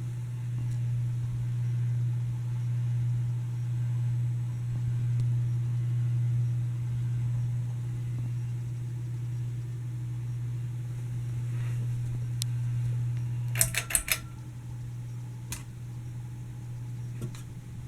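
Hampton Bay Landmark Plus ceiling fan motor running with a steady buzzing hum. About 14 seconds in there is a quick run of sharp clicks, and the fan is a little quieter afterwards while the hum goes on.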